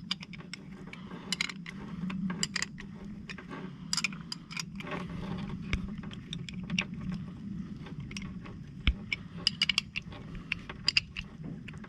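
Irregular small metallic clicks and scrapes of a wrench working the bolts of a hand cable-swaging tool clamped on a rigging ferrule, over a steady low hum.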